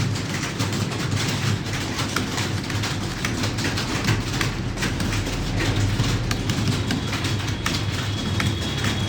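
Many computer keyboards being typed on at once during a timed typing test: a dense, unbroken clatter of key clicks over a steady low hum.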